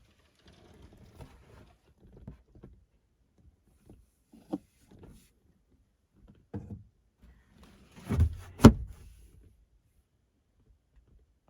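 Scattered light knocks and clicks of things being handled, then a heavy thump followed by a sharp loud clack a little past eight seconds in, the loudest sound.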